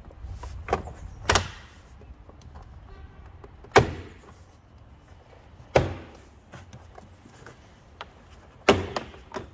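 Plastic retaining clips of a Seat Leon Mk3 front door card popping out of the door as the panel is pulled off by hand. There are four loud sharp snaps a couple of seconds apart and a few smaller clicks between them.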